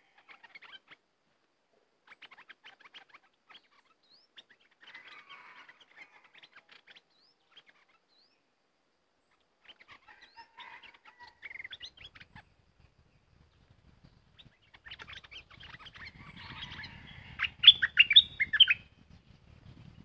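Stripe-throated bulbuls calling: scattered bursts of short chirping notes, ending in a louder quick run of sharp notes near the end, over a faint low rumble.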